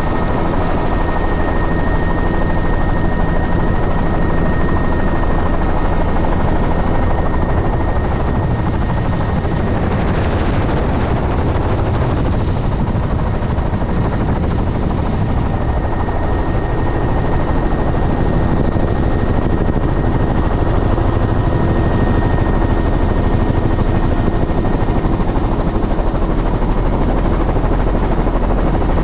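Helicopter in flight heard from on board: engine and rotor running steadily, a constant low rumble with a thin steady high whine over it.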